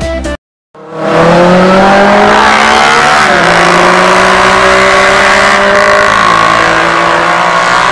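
Benelli TNT 600i's inline-four engine through an aftermarket CRT exhaust, revving hard under acceleration. Its pitch climbs and then drops at gear changes about three and six seconds in.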